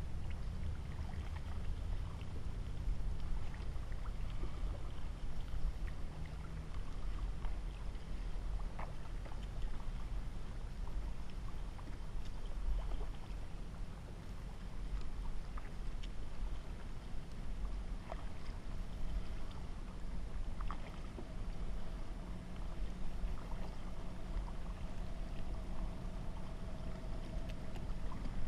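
Kayak paddle strokes in lake water: the blade dipping and drawing through, with small splashes and drips, over a steady low rumble.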